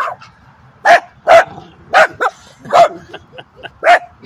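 Small dog barking in sharp, loud single barks, about six in four seconds, with a few quicker, fainter yaps in between near the end: warning barks at a stranger.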